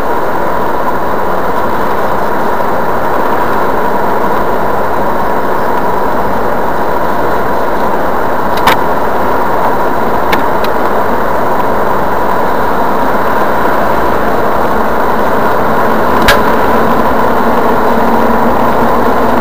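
Steady engine and tyre noise of a car cruising on a highway, heard from inside the cabin, with a thin steady whine running through it. Three short sharp ticks come at about nine, ten and sixteen seconds in.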